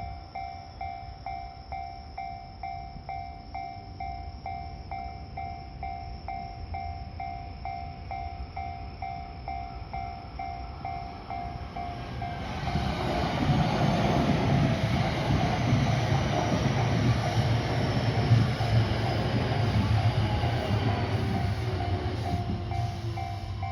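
Japanese level-crossing alarm bell ringing in a steady two-tone clang at about two strikes a second. About halfway through, an electric train comes through the crossing with a loud rumble and wheel noise that drowns the bell, which shows again just as the train clears near the end.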